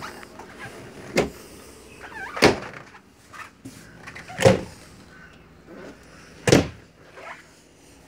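Wooden doors in a travel trailer's interior, a cabinet door and a sliding door with a metal latch, being opened and shut, giving four sharp knocks spaced a second or two apart.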